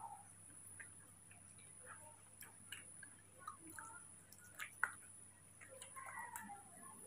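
Near-quiet room with faint, scattered soft clicks and lip smacks, and a few faint thin squeaks from a baby macaque near the end.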